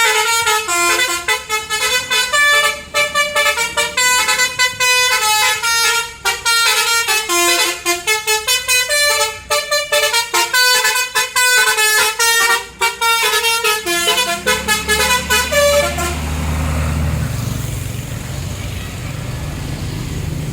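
A tour bus's 'basuri' telolet musical horn playing a quick, stepping multi-note tune, which breaks off about sixteen seconds in. Under and after it the bus's engine rumbles, growing louder near the end.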